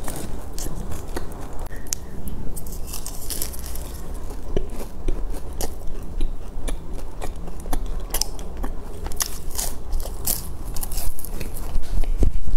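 A person biting and chewing a flaky-crusted egg tart close to a clip-on microphone, with many small, irregular crisp crackles.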